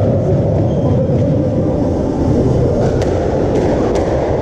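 Squash ball struck by racket and hitting the court walls as a rally starts: a few short, sharp knocks, the clearest about three seconds in, over a steady low rumble.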